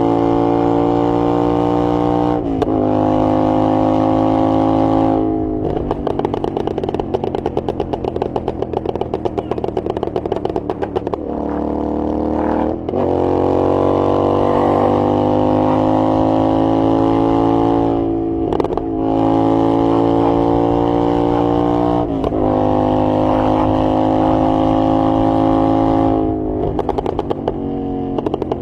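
Royal Enfield GT 650 parallel-twin through a Red Rooster aftermarket exhaust, held at steady raised revs in several spells lasting a few seconds each. Between spells the pitch drops or jumps, and once it sinks slowly as the revs fall.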